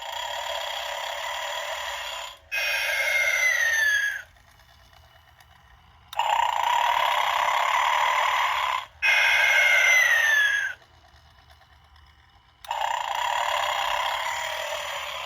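Snoring Santa giving a long snore in, then a whistle falling in pitch on the breath out, repeated about every six seconds: two full snore-and-whistle cycles and then a third snore.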